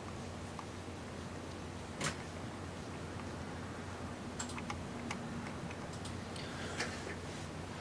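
Scattered light clicks from computer controls as pages of a document are advanced: one sharp click about two seconds in, a quick cluster around the middle, another near the end. Under them is a steady low hum.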